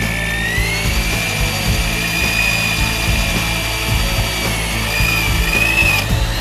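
Corded electric drill running under load as it bores a long bit into a wooden joist: a steady motor whine that rises in pitch during the first second, dips slightly near the end, then cuts off abruptly.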